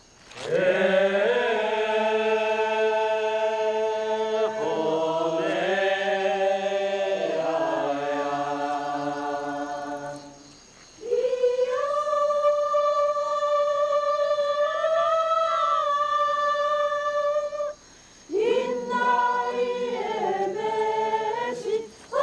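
Tsou villagers singing a traditional ceremonial song in chorus, men's and women's voices holding long notes together in several parts. There are three phrases, broken by short pauses a little over 10 seconds in and again near 18 seconds.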